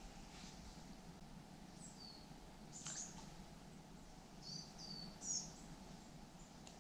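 Faint small-bird chirps: a few short high notes about two, three and five seconds in, over quiet steady riverside background noise.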